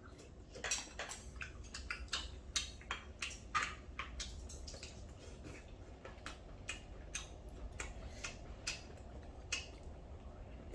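Spoons clicking and scraping against plates in quick irregular taps while curry is mixed into rice and eaten. The taps come thickest in the first few seconds.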